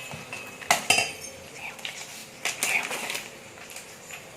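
Metal spoon clinking against a metal vessel while measuring out turmeric powder: two clinks about a second in, then a few more with a light ring around the middle.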